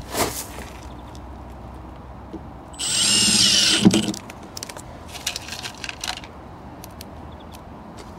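Milwaukee cordless impact driver driving a screw through a plastic conduit box into timber cladding: a brief blip at the start, then about a second's loud run near the middle that changes pitch as the screw drives home, followed by a few small clicks.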